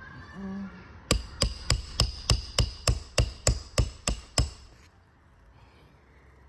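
Hammer blows during shingle repair on a roof: about a dozen quick, ringing strikes, roughly three a second, stopping after about three seconds.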